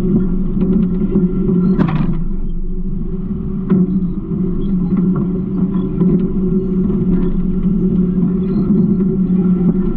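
Garbage truck running with a steady low engine drone, over scattered light rattles and a sharper clatter about two seconds in.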